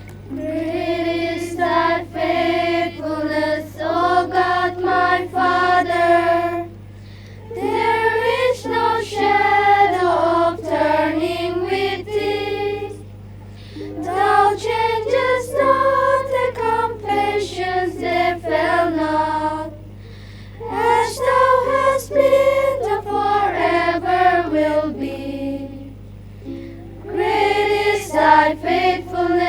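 A song sung by a choir with music, in phrases of about five to six seconds separated by short breaks, over a steady low hum.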